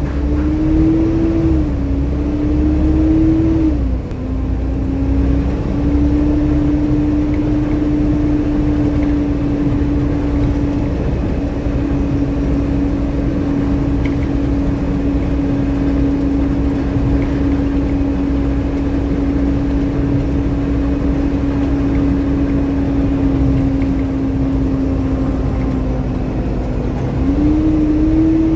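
Loud whine from a double-decker bus's engine cooling fan, heard inside the upper deck over the low rumble of the diesel engine. The whine holds one steady pitch, dipping briefly about two and four seconds in and stepping up again near the end.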